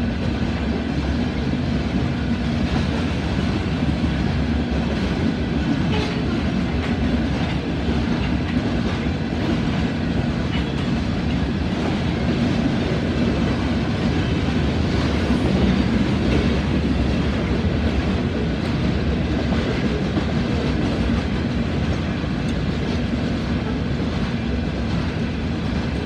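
Freight train of empty rock cars rolling past at speed: a steady rumble of steel wheels on rail, with scattered clacks as the cars go by.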